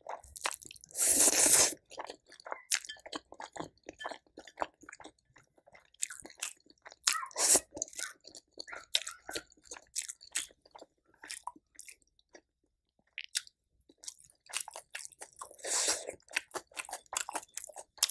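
A person chewing food close to the microphone: a run of short wet clicks and crunches, with two louder noisy bursts, about a second in and near the end.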